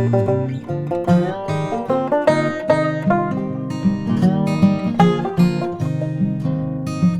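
Background music played on acoustic guitar, a run of plucked notes at a lively pace.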